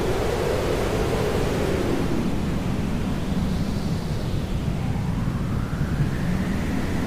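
Hair dryer running steadily, an even rushing noise used as white noise, its tone slowly sweeping down and back up.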